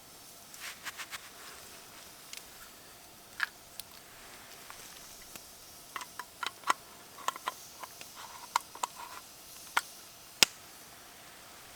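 Campfire crackling: irregular sharp pops and snaps over a faint hiss, thickest about six to nine seconds in, with the loudest pop near the end.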